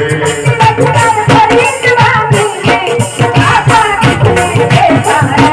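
A woman singing a devotional bhajan into a microphone, amplified, over loud instrumental accompaniment with a steady drum beat.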